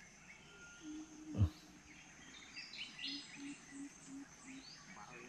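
Faint riverside jungle ambience: scattered bird chirps over a steady high insect whine. A single sharp knock comes about a second and a half in, and near the middle a short run of about five low, evenly spaced notes.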